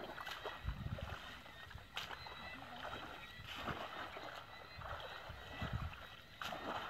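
Shallow muddy water sloshing and splashing as people wade through it and scoop with a woven basket, with a few sudden sharper sounds.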